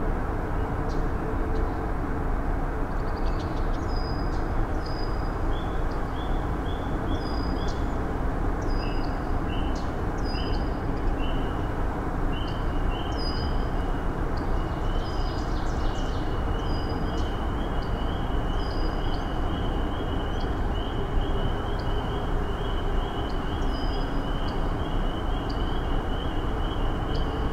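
A steady low rumbling noise runs throughout. Over it, birds chirp in short high notes repeated in series, coming faster and closer together in the second half.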